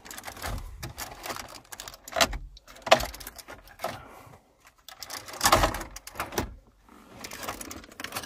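Plastic centre dashboard fascia of a Land Rover Freelander 2 being pulled free of its push clips: a run of irregular plastic clicks, snaps and knocks, the sharpest around three seconds in and again about five and a half seconds in.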